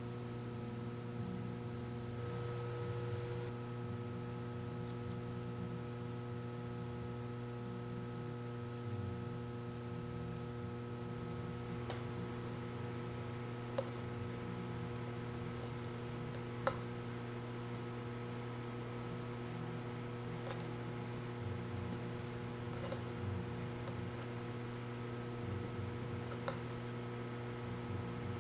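Steady electrical mains hum, with a few faint, sharp clicks scattered through it.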